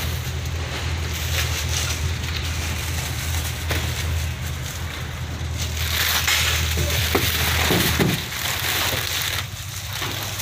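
A boat's engine running as a steady low hum that drops away about eight seconds in. From about six seconds in, plastic bags wrapped around frozen squid blocks crinkle loudly as they are lifted and shifted at the hold.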